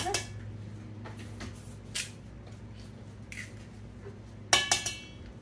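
Kitchen clinks and knocks of dishes and utensils as two eggs are added to drained pasta: a few sharp separate clicks, then a cluster of louder ringing clinks about four and a half seconds in.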